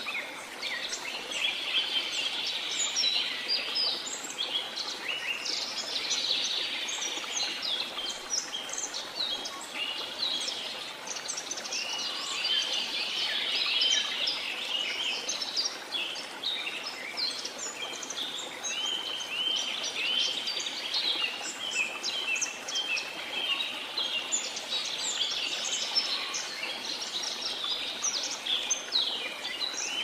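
A dense chorus of many small songbirds chirping and twittering without pause, high-pitched, over a faint steady hiss.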